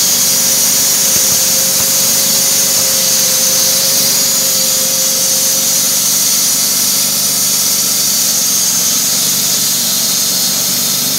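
Wood-Mizer LT28 band sawmill running steadily, its band blade cutting lengthwise through a log.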